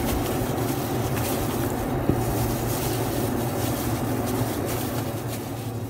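Plastic glove rustling and crinkling as a hand rubs thick spice marinade into raw chicken pieces in a plastic bowl. A steady low hum runs underneath.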